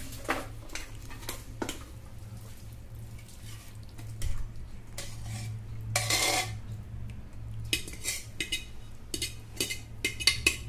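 Metal spoon scraping and clinking against an aluminium pressure cooker and a steel strainer as cooked chana dal is spooned out, in scattered short clinks with a longer noisy stretch about six seconds in.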